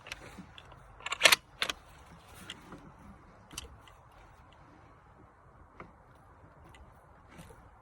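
Metallic clicks and rattles of a bolt-action rifle being handled: a quick cluster of sharp clicks about a second in, another just after, then a few fainter clicks spread out.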